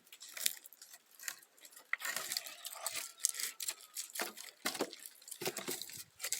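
Pieces of cut firewood being handled and stacked into a bonfire pile: irregular wooden knocks and snaps with crackly rustling between them.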